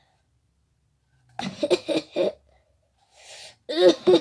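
Short wordless vocal sounds from a person's voice: a cluster about a second and a half in, a breathy hiss, then another cluster near the end.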